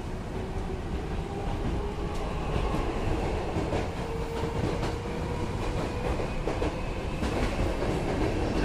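Hankyu 8000-series electric train running, heard from inside the car: a steady rumble of wheels on rail with clicks over the rail joints and a faint whine that rises slightly in pitch.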